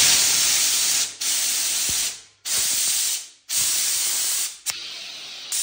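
Bieffe Farinelli professional steam generator's hand gun blasting steam in a string of hissing bursts, about one a second, as the trigger is pressed and released; the last burst is weaker.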